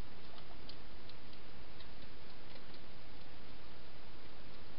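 Faint, irregular crunchy clicks of a wild hedgehog chewing dry food, over a steady hiss.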